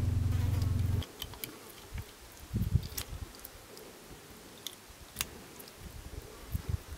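A steady, insect-like buzz cuts off suddenly about a second in. After it comes a knife filleting fish on a cutting board: soft wet cuts and scrapes with a few light clicks.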